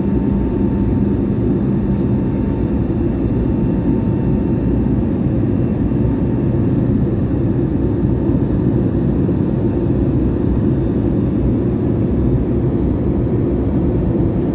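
Jet airliner cabin noise in flight: a loud, steady rumble of the turbofan engines and airflow, heard from a window seat beside the engine. A faint steady tone above it fades about two-thirds of the way through.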